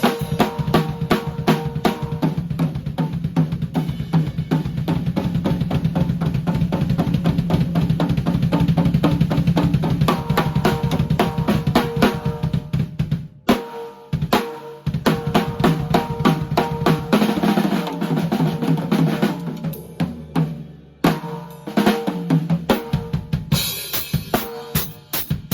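Drum kit played in a fast groove of bass drum, snare and cymbal strokes, with short breaks about 13 and 21 seconds in. The hi-hat sounds muffled.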